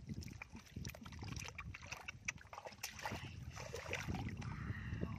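Gloved hands sloshing and squelching through shallow muddy water and soft mud, with irregular small splashes and wet clicks.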